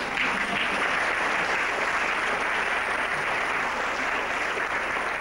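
Audience applauding in a hall: steady, dense clapping.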